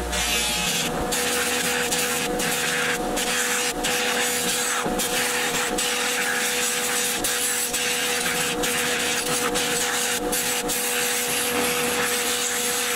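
Bench buffer running with a steady motor hum under a rasping hiss from a cloth buffing wheel. At the start a bar of buffing compound is pressed to the wheel, then a metal toy-truck grille is polished against it, the hiss dipping and swelling as the part is pressed on and eased off.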